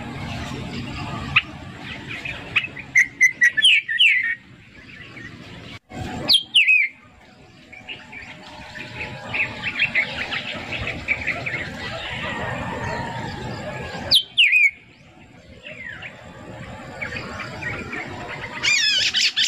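Birds chirping: short, quick downward-sliding calls in several separate clusters, densest near the end.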